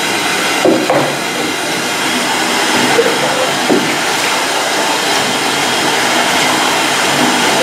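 Bathtub faucet running steadily, water splashing into the tub.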